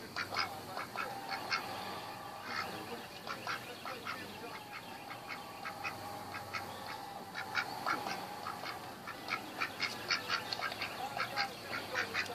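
Mallard drake making short, soft calls and nibbling clicks with its bill as it grooms a cat's head, coming in quick irregular runs that grow busier in the second half.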